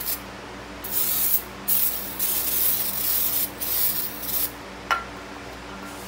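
Aerosol brake cleaner spraying in several bursts of hiss onto a disc-brake rotor hub to wash off wheel-bearing grease. A single sharp click follows near the end.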